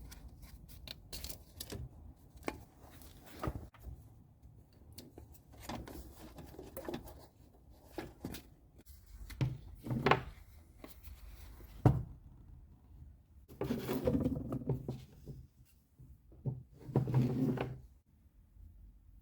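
Irregular clicks, knocks and short scraping rattles of handling work, with a few longer scraping bursts in the second half.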